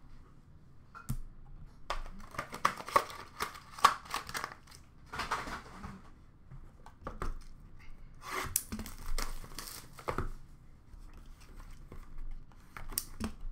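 Plastic trading-card packaging crinkling and rustling in fits and starts as a hand rummages through a plastic bin of opened packs, with sharp clicks and taps of card holders against each other.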